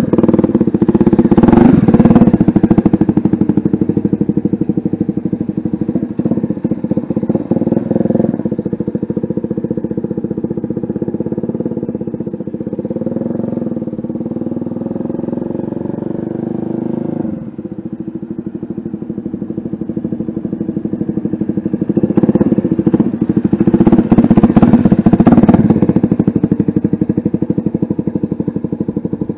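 CFMoto 300SS sport bike's single-cylinder engine, fitted with an aftermarket exhaust, riding past. It is loudest twice, as the bike passes close near the start and again about two-thirds through, and quieter in between as it rides off across the lot.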